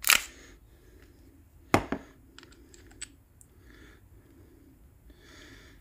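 Clicks from the slide and parts of a TTI 2011 gel blaster pistol being worked by hand: a sharp click at the start, another nearly two seconds in, then a few lighter clicks.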